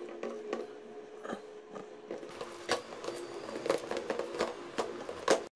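Hands kneading wet maida dough in a steel bowl: irregular slaps and clicks of dough and fingers against the metal, growing more frequent and louder from about two seconds in, over a faint steady hum. The sound cuts out briefly just before the end.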